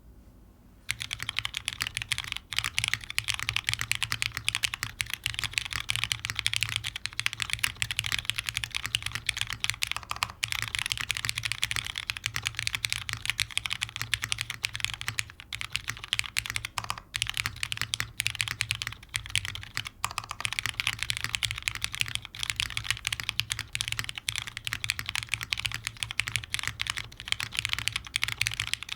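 Continuous fast typing on a custom Daal mechanical keyboard, plateless and O-ring mounted, with lubed Cherry MX Black linear switches and GMK keycaps. It is a dense run of key strokes starting about a second in, broken by a few brief pauses.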